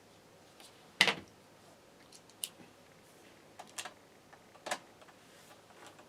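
Scattered sharp clicks and taps from hands handling small hardware and wiring, the loudest about a second in and a few lighter ones after it; the horn is not sounding.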